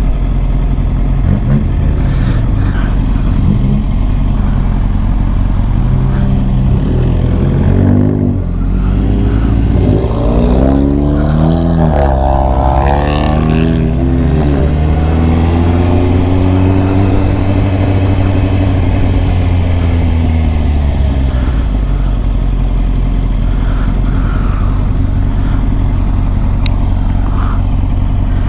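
Motorcycle engine running while riding, with a heavy low rumble throughout. From about 8 to 21 seconds in, the engine pitch rises and falls several times as it revs and eases off.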